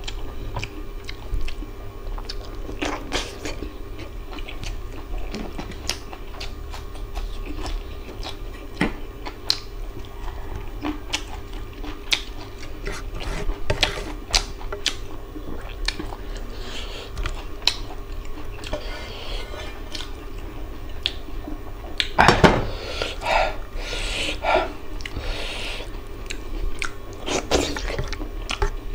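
A person chewing mouthfuls of rice and mutton curry eaten by hand, with many short wet clicks throughout and a louder cluster of them about three-quarters of the way through.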